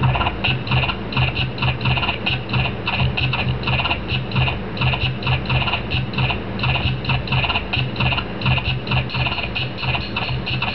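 Background music: an instrumental stretch of a beat-driven track, with a low note pulsing several times a second under quick high ticking.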